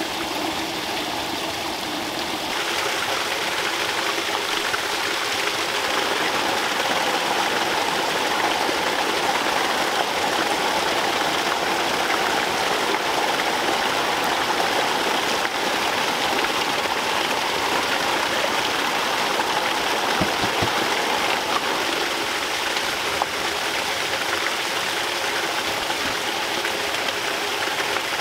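Water pouring and splashing steadily into a shallow pond, a little louder after about two and a half seconds.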